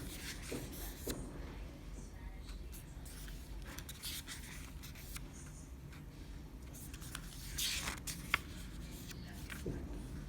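Hands handling a CD and DVD package: intermittent rustling and scraping, with a louder rustle about seven and a half seconds in, followed by a sharp click.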